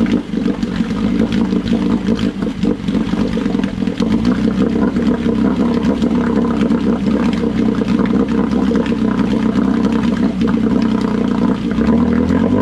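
1972 Johnson 9.5 hp two-cylinder two-stroke outboard running steadily in a test barrel, its propeller churning the water. Near the end the revs pick up as the throttle is opened.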